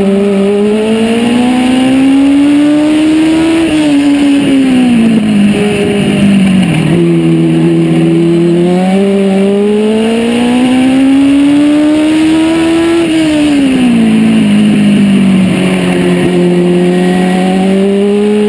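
Legends race car's Yamaha 1250cc four-cylinder motorcycle engine heard from inside the cockpit, running hard under racing load. Its pitch climbs slowly down the straights and drops as the driver lifts for the turns, twice over.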